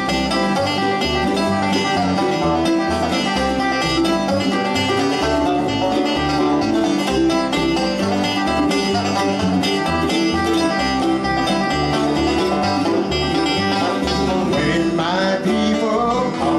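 Bluegrass string band playing an instrumental break on picked strings, at a steady tempo.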